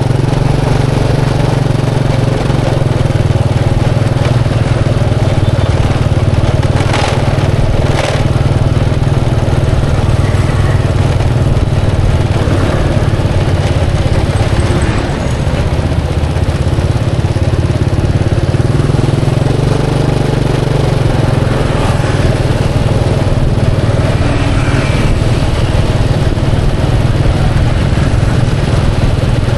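Steady motor-vehicle street traffic, with motorcycle engines running, with two brief clicks about seven and eight seconds in.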